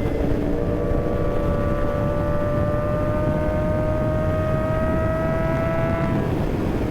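Kawasaki ZX6R inline-four sport bike engine pulling under steady throttle, its pitch rising slowly over about six seconds, then fading out near the end as the throttle comes off. A low rush of wind and road noise runs underneath.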